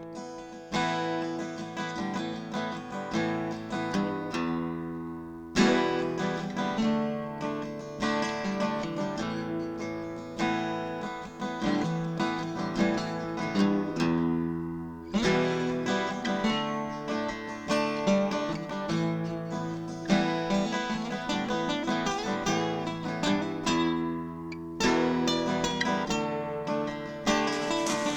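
Background music: acoustic guitar picked and strummed, with new notes and chords every second or so.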